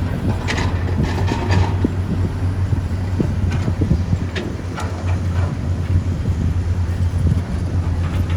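An excavator's diesel engine running steadily with a low drone, with scattered sharp knocks and clanks from the working machine, mostly in the first half.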